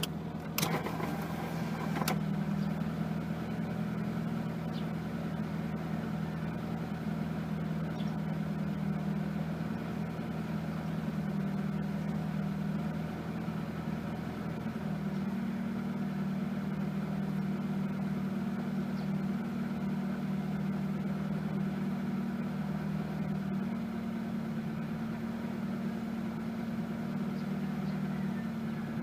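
Mitsubishi Lancer's fuel-injected four-cylinder engine idling steadily while warming up from a cold start, after a newly installed MAF sensor fixed its rough idle. The idle pitch steps up slightly about halfway through and again near the end. A few sharp clicks come in the first two seconds.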